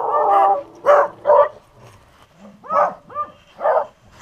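Hunting beagles barking and baying in a run of short, pitched calls: a quick cluster, a pause of about a second, then several more.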